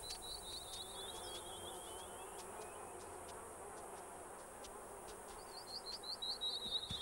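Faint wildlife ambience of rapid, high chirping. A run of chirps slides slowly down in pitch over the first couple of seconds and fades, then starts again higher about five and a half seconds in, over a low hiss with a few faint ticks.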